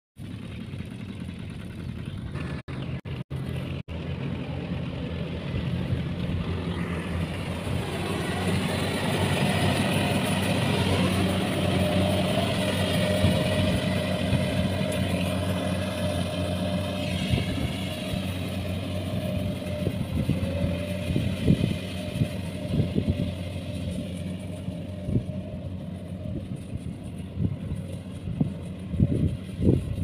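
Kubota combine harvester's diesel engine running steadily as it cuts rice, a wavering high whine riding over the engine hum. The sound drops out briefly a few times about three seconds in, and a few sharp knocks come near the end.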